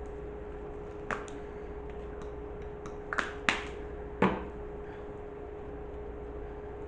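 A handful of short, sharp clicks and taps, the loudest two about three and a half and four seconds in, over a steady hum.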